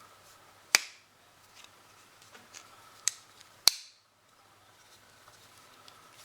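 Victorinox Hunter Pro M Alox lockback knife being snapped shut and open: three sharp metallic clicks of the blade and lockback catching, a loud one under a second in, then a lighter one and a loud one about three seconds in.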